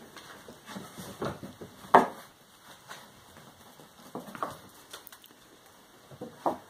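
Kittens playing on a hard wooden floor: scattered light patters and rustles of paws and toys, with a sharp knock about two seconds in and another near the end.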